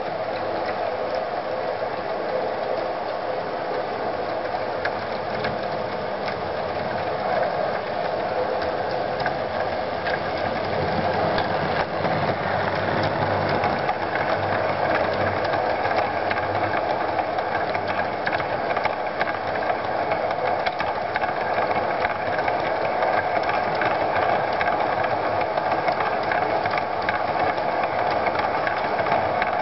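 Electric model railway train running on the track, with a steady motor whirr and rapid fine clicking from the wheels. It grows louder about ten seconds in as the rake of coaches passes close by.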